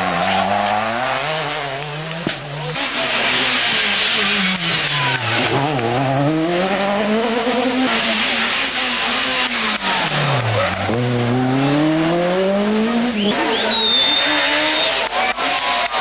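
Rally car engine revving hard and pulling up through the gears, then dropping its revs sharply twice, as for braking into corners, and accelerating away again each time. A short high tyre squeal comes near the end.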